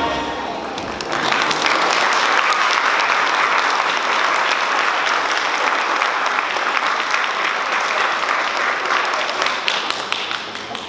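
Audience applauding. The clapping swells about a second in and dies down near the end.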